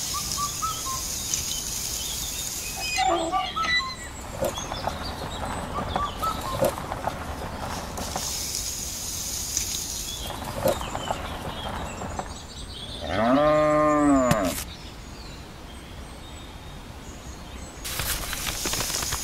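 Rural ambience: a cow gives one long moo, rising then falling, about two-thirds of the way in, the loudest sound here. Short bird chirps and a high hiss come and go around it.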